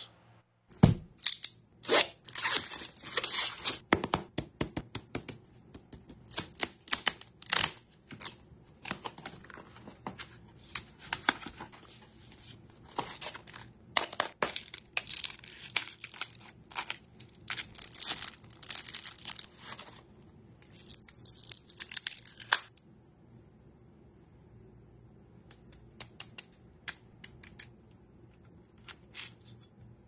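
Unboxing handling sounds: a cardboard box and its packing being handled, with clicks from a clear plastic parts case and small metal lock parts. A busy run of short clicks and rustles thins to a few scattered clicks for the last several seconds.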